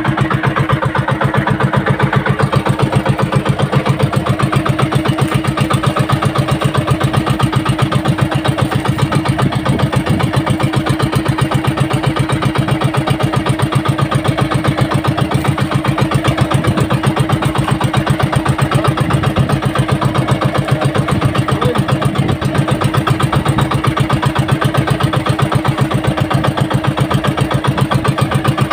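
Outrigger fishing boat's engine idling, loud and steady with a rapid, even pulse.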